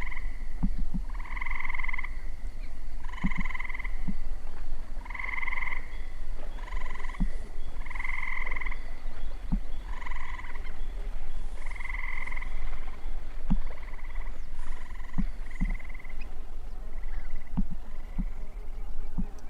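A frog croaking over and over, one short call roughly every one and a half to two seconds, over a steady low hum.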